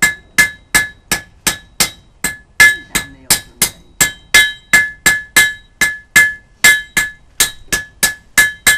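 Blacksmith's hand hammer striking hot iron on an anvil in a steady rhythm of about three blows a second, each blow ringing with a bright metallic tone; he is forging a nail. The blows stop near the end.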